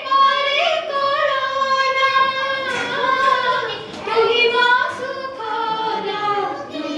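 Two women singing an Oriya song as a duet through microphones, with long held, gliding notes.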